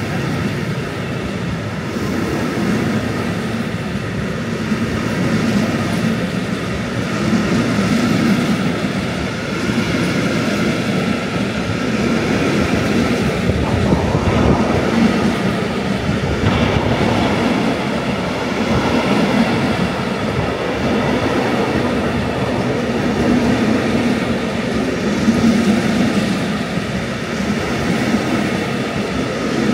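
A long rake of empty timber wagons on a freight train rolling steadily past, a continuous noise of steel wheels running on the rails.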